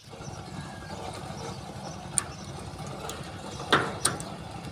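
Key being worked in a padlock hung through a metal gate latch: three sharp metal clicks, the loudest a little before the end, over a steady low hum.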